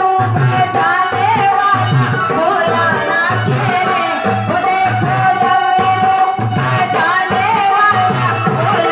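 Hindu devotional bhajan being performed live: a singer's melodic voice over a steady, even drum beat with jingling hand percussion.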